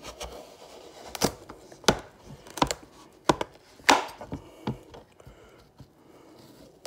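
Knife cutting through dense, hard raw acorn squash in a series of sharp chops, about one every two-thirds of a second, with a couple of lighter cuts near the end.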